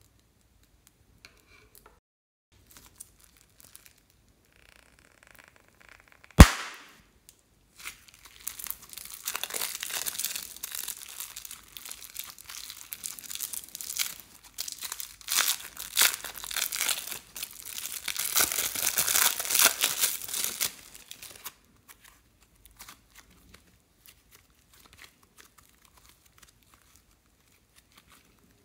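Thin plastic piping bags crinkling and tearing as they are pulled open and peeled off soft slime, a long stretch of dense crackling. It is preceded by a single sharp click about six seconds in, and is quiet again near the end.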